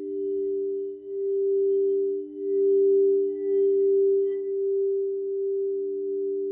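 Crystal singing bowls ringing in two steady tones held together, the higher one swelling and dipping in loudness several times.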